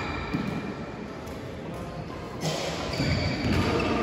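Players moving on a sports-hall court during a badminton rally: shoe squeaks on the floor and a few light thuds and clicks, echoing in a large hall.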